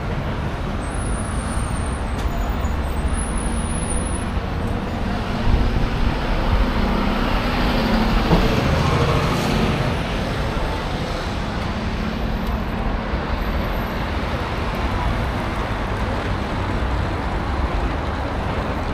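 Steady engine rumble with a continuous hiss of motor noise.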